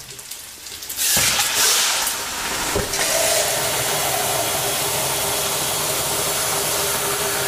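Water poured into a hot pan of frying tomato paste and garlic, hissing and steaming, with a steady, loud hiss that starts about a second in. There are two light knocks near the start.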